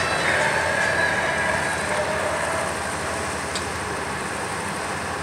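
Steady outdoor background noise, a constant hiss and rumble with no single clear source, easing slightly after about two seconds.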